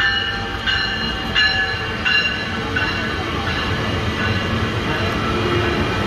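Metrolink commuter train with bi-level coaches rolling past: a steady low rumble of wheels on the rails. A bell rings about every 0.7 s during the first three seconds, then fades out.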